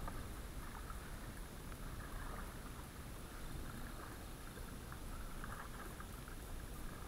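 Water sloshing and lapping around a kayak as it is paddled, with small splashes, over a low wind rumble.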